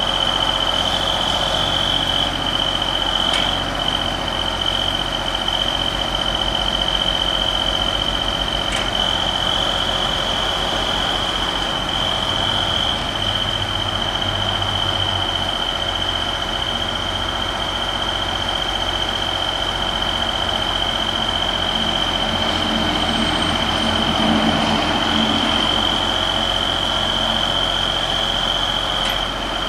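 Deutz diesel engine of a JLG 450AJ articulating boom lift running steadily, with a steady high-pitched tone sounding over it.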